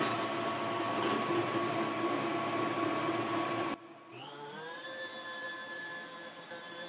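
Stand mixer's motor running a food processor shredding attachment as zucchini is pushed through, a steady whine over a rough shredding noise. About four seconds in the sound drops sharply to a quieter motor whine that rises in pitch and then holds steady.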